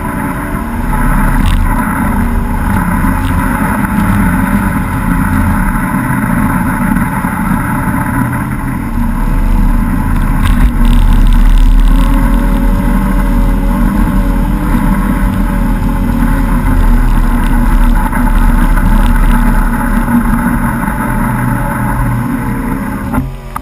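Small outboard motor running at speed on a flat-bottom tunnel-hull skiff, over the rush of water from the wake. The engine pitch wavers as the boat turns.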